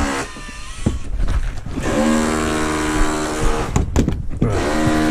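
Power drill driving a screw into timber, its motor whining at a steady pitch for about two seconds, stopping with a couple of clicks, then starting again near the end.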